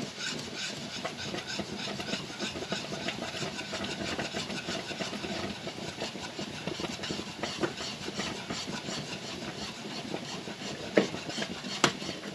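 A whisk being worked fast around a pot of hot strawberry rhubarb jam, a steady rapid scraping, with two sharp knocks near the end. The stirring keeps the heat even as the jam is brought up toward its gel temperature.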